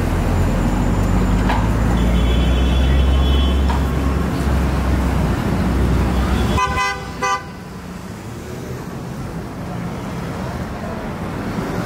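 City street traffic with a vehicle engine rumbling low at close range, then a car horn sounding two short toots in quick succession about seven seconds in; afterwards the rumble falls away to a general street hum.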